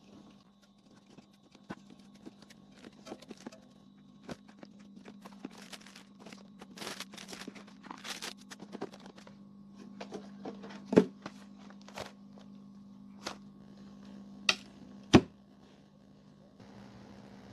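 Scattered clicks and knocks over a steady low hum, with three sharp clicks standing out about eleven, fourteen and fifteen seconds in.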